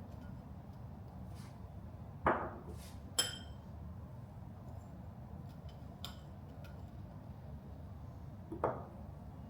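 Kitchenware being handled over a low, steady background hum: a knock about two seconds in, a sharp ringing clink a second later, and another knock near the end.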